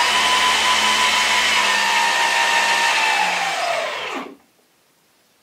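Electric propeller motors on a radio-controlled B-17 model wing running with a steady whine, then spooling down in falling pitch and stopping about four seconds in.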